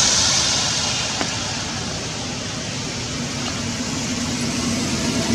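Steady rain falling: an even hiss, with a single faint click about a second in.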